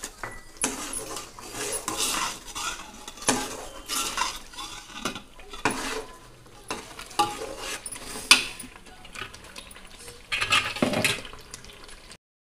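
Long metal ladle stirring and scraping around a metal cooking pot as a masala gravy is fried, with repeated scrapes and clinks against the pot at an uneven pace.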